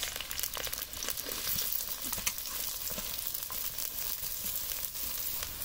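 Chopped onions frying in hot oil in a steel kadai, a steady sizzle with many small crackles, as more onion is tipped into the pan.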